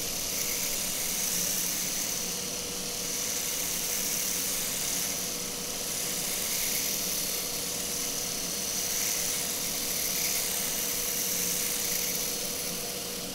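Industrial vacuum cleaner running steadily, a loud rushing noise with a constant hum, mixed with a three-head rotary electric shaver running, heard through a sound-pressure microphone held against the shaver heads. The vacuum noise heavily swamps the shaver's sound.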